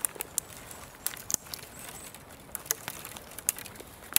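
Dry, dead pine twigs being snapped off a fallen branch by hand for kindling: a string of sharp, irregular cracks and snaps.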